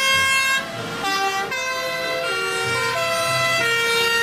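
Several fire engines' two-tone sirens sounding together, each switching back and forth between two pitches roughly every half second, out of step with one another.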